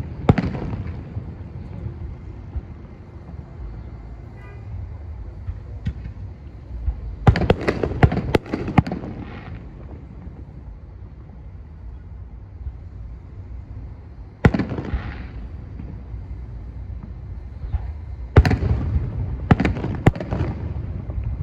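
Aerial fireworks shells bursting at a distance: a bang at the start, a quick cluster of several about a third of the way in, a single one about two-thirds in, and another cluster near the end, each trailing off into a rumble. A steady low rumble fills the gaps between.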